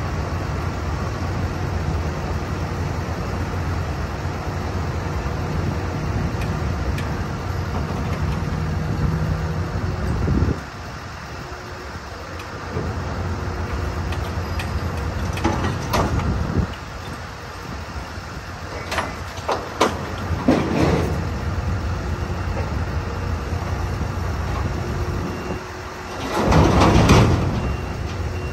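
Heavy rotator tow truck's diesel engine running under load as it lifts an overturned roll-off truck upright. The engine drone drops away about a third of the way in. A few short clanks follow, then a loud rush of noise about a second long near the end as the truck comes down onto its wheels.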